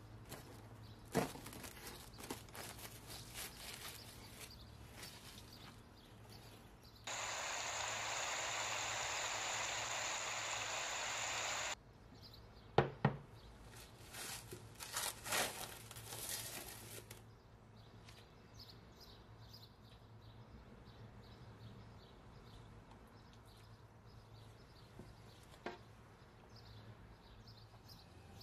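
Cling film crinkling as it is stretched over a glass mixing bowl, then a steady hiss for about five seconds that starts and stops abruptly. After it comes a sharp metal knock and some light rattling of a stainless roasting tray and wire rack being handled, then only faint room noise.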